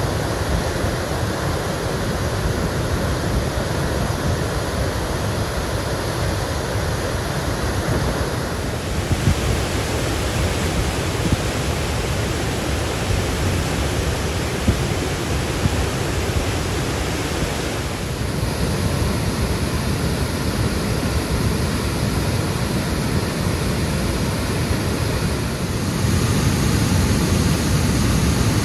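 Rock-ledge waterfall in flood after heavy rain: a steady, loud rush of muddy floodwater pouring down the cascade. The rush changes tone a few times and is louder near the end.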